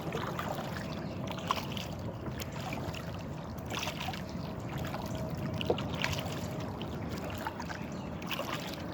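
Pedal kayak under way: water sounds along the hull, a faint steady whine and a couple of sharp ticks from the pedal drive. The rider can't place the noise and thinks it may come from the cables.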